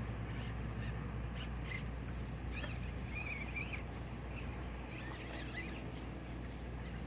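Axial SCX24 micro RC crawler's small electric motor and drivetrain whining in short throttle bursts, with high squeaky rises and falls in pitch twice, over a steady low hum.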